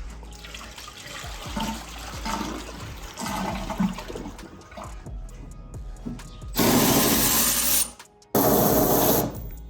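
Scattered quiet knocks and rattles, then two loud bursts of dense whirring, rushing machine noise near the end, each about a second long with a short gap between them.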